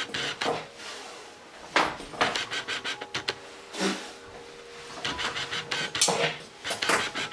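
Brush strokes through a short-legged terrier's coat: quick, scratchy strokes in short runs of several, with pauses between them.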